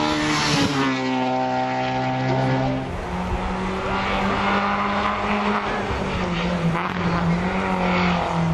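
Racing car engines at full throttle on a hill climb. The first engine's note drops in pitch about a second in. From about three seconds in, another engine holds a steady high-revving note.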